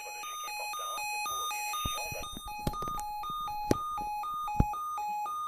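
Emergency alert attention signal: two electronic tones taking turns, high then low, about twice a second, cutting off abruptly at the end. A few sharp pops sound through it in the second half.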